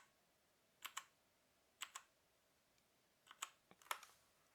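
Keys on a mechanical keyboard with brown switches being pressed about four times, each press a quick pair of sharp clicks as the key goes down and comes back up.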